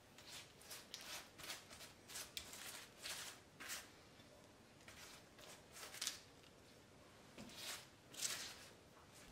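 Silicone pastry brush stroking melted butter over the crisp crust of a freshly baked apple strudel: a string of short, soft swishes at an uneven pace, with a few pauses between them.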